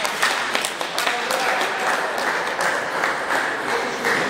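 Applause: a small group of people clapping.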